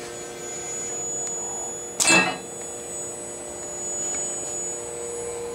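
A valve spool fitted with o-rings drops from the robot gripper into a chute: one loud clatter about two seconds in, over a steady machine hum and whine.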